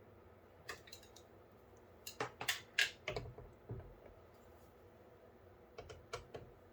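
Scattered sharp clicks and light knocks of PC hardware being handled while the AIO cooler's pump is removed and flipped: one click, then a quick cluster of knocks, then a few more clicks near the end.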